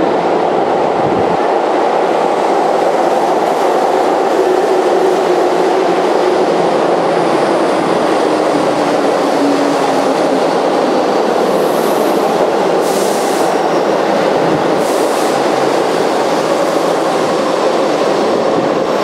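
Keihan 8000 series limited express electric train running through an underground station at speed without stopping: a loud, steady running noise of wheels on rails and rushing air.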